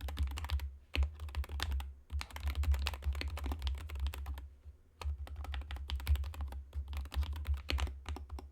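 Typing on a Skyloong GK68 HE Hall-effect mechanical keyboard: fast runs of key clacks with brief pauses about two seconds in and about halfway through, stopping right at the end.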